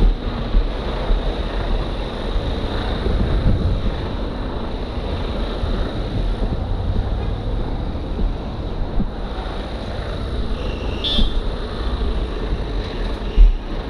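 Articulated lorry's diesel engine running as it turns slowly past at close range, a steady low rumble with wind buffeting the microphone. A short high-pitched squeal comes near the end, then a brief thump.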